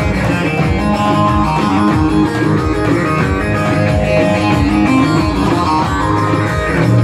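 Loud amplified dance music from a live band, led by a plucked string instrument over a steady beat.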